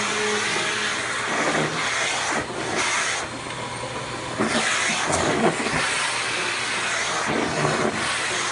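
Vacuum cleaner running, its hose nozzle drawn over a long-haired cat's fur: a steady hiss of suction whose tone brightens and dulls several times as the nozzle moves.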